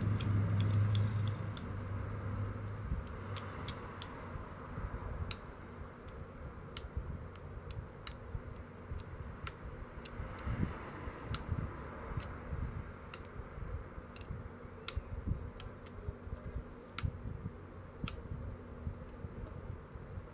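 An obsidian knife edge being pressure-flaked by hand, small flakes snapping off as sharp, irregular clicks about one or two a second, as the edge is sharpened. A steady low hum sounds for the first couple of seconds.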